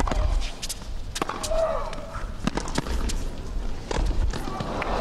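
Tennis rally: sharp pops of racket strikes on the ball and the ball bouncing on the hard court. About one and a half seconds in, a player lets out a drawn-out, falling grunt on a stroke.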